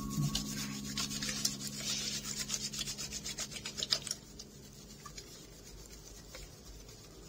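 Quick rhythmic rubbing strokes, several a second, which stop abruptly about four seconds in.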